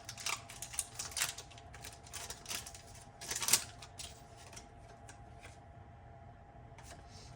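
A Pokémon trading card booster pack being opened and its cards handled: a run of crinkling, rustling clicks over the first four seconds, the loudest about three and a half seconds in, then only faint handling.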